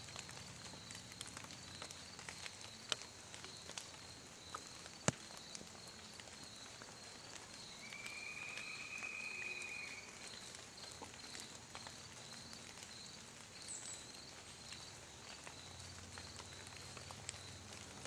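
Faint woodland ambience: an insect chirping steadily about twice a second, with scattered soft crackles in the leaf litter and one sharp snap about five seconds in. Around eight seconds in, a single even whistle lasts about two seconds.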